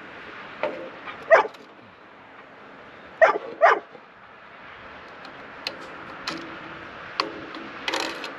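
A dog barking in short, sharp barks several times. The two loudest come in quick succession about three seconds in, and fainter ones follow later.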